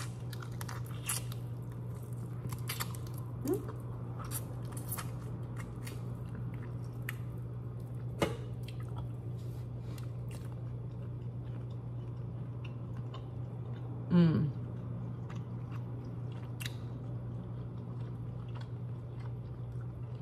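Close-miked eating of shrimp: chewing and crunching with scattered small clicks and snaps as the shells are peeled, over a steady low hum. A brief vocal sound, louder than the rest, comes about fourteen seconds in.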